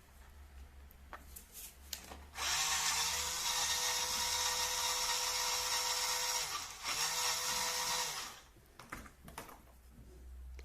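Small electric drive motor of a 1/16 six-wheel-drive RC truck running with a steady whine for about six seconds, dipping briefly once, then stopping. A few light clicks come before and after.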